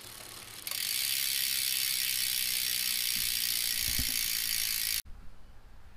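Rear hub's freehub ratcheting in a steady buzz as the bike's rear wheel spins on a work stand. It starts suddenly just under a second in and cuts off abruptly about five seconds in.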